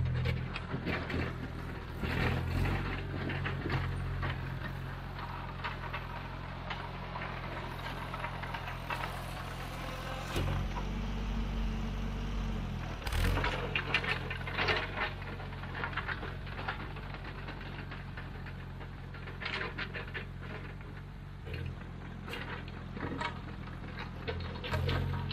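Engine of a heavy earthmoving machine running steadily under load, with scraping and rattling of soil and rock. The engine revs up for a couple of seconds about halfway through.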